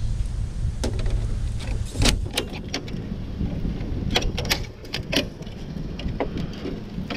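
Sharp irregular clicks and metallic knocks of hands prying at and handling a flat-screen TV's thin sheet-metal chassis and circuit board, over a steady low rumble.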